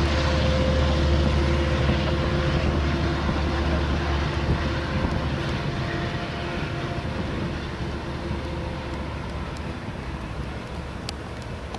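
Diesel locomotive engine running with a steady low hum, which dies away about four seconds in, leaving a fainter rumble that keeps fading.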